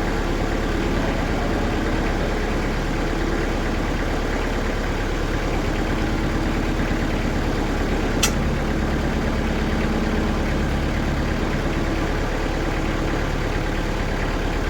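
Diesel engine of a TimberKing sawmill running steadily. A sharp click comes about eight seconds in, and the low note grows heavier for a few seconds after it.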